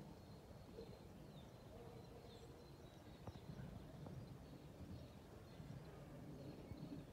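Faint outdoor ambience, close to silence: a low, even rumble with a few faint, high bird chirps and a single soft click about three seconds in.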